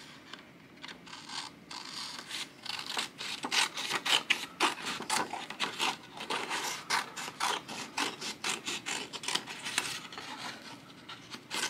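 Scissors cutting through a sheet of paper along a traced outline: a run of quick, irregular snips with the paper rustling. They start about a second in and thin out near the end.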